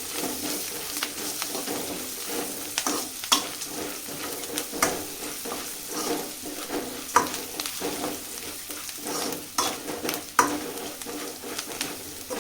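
Food sizzling as it fries in a pan, with a spatula stirring and knocking against the pan in irregular clicks.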